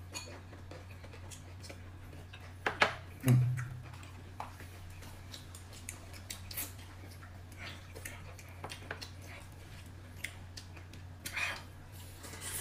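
Eating at a table: chopsticks clicking against bowls and plates, with a louder knock about three seconds in, over a steady low hum.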